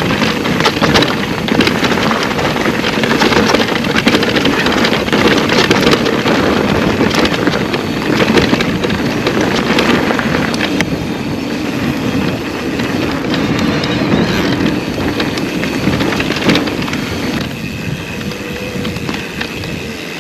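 Mountain bike riding over a rough trail: continuous tyre rumble with frequent rattling knocks from the bike.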